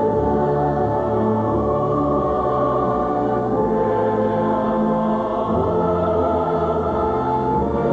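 Music with choir-like voices holding long notes over sustained chords, the harmony shifting every second or so.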